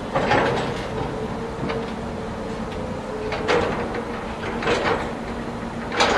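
Caterpillar tracked scrap-handling machine running steadily, its engine and hydraulics holding a constant tone, with several sharp metallic clanks and scrapes as its grapple works on and lifts off a crushed car body.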